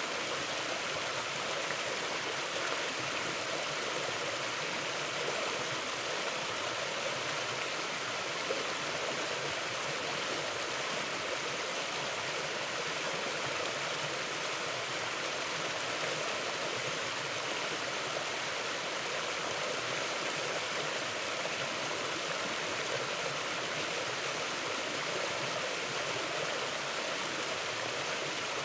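Mountain river flowing over rocks: a steady, even rush of water.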